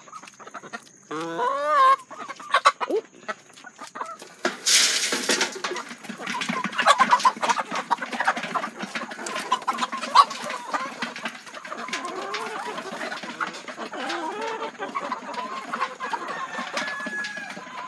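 A flock of laying hens and roosters clucking as they crowd a galvanized feeder. A short rush of feed being poured comes about five seconds in, followed by many quick clicks and taps as the birds feed.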